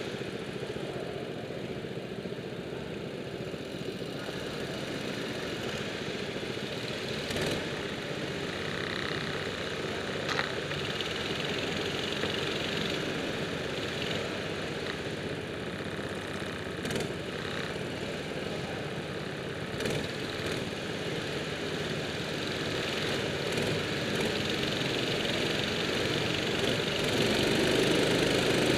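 Several go-kart engines idling together on the grid, a steady mechanical running with a few short clicks, growing louder near the end.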